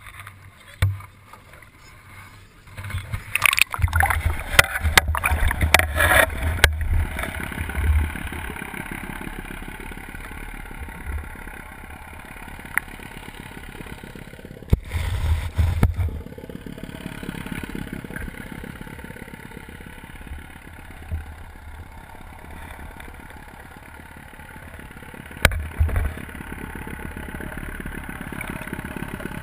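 Small boat moving on a lake: a steady rush of water and hull noise, with several loud irregular bursts of splashing and buffeting.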